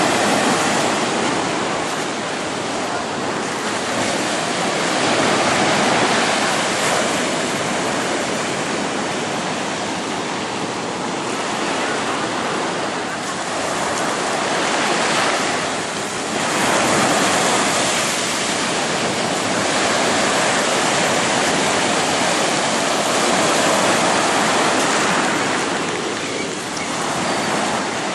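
Atlantic surf breaking and washing up the beach, a steady rush that swells and eases every few seconds.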